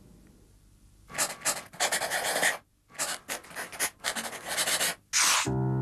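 A pen scratching across paper in a run of quick handwriting strokes, with short breaks between words. Music begins just before the end.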